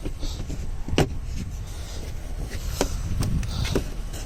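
A pickup's rear seat being handled and latched: several sharp clunks and clicks, the loudest about a second in, over a low wind rumble on the microphone.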